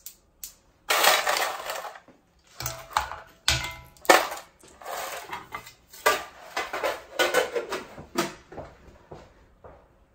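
Ice cubes clattering and sliding around a non-stick frypan as it is swirled to cool the pan, in irregular bursts with sharp clicks, growing fainter near the end.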